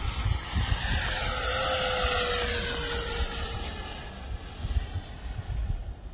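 Freewing F-16 90mm electric ducted-fan jet making a low pass: the fan's high whine swells to a peak about two seconds in, drops in pitch as it goes by, and fades away near the end.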